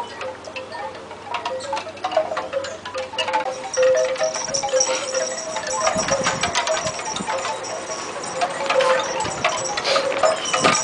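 Wind chimes ringing irregularly: many short, overlapping metallic notes, with a few light clicks.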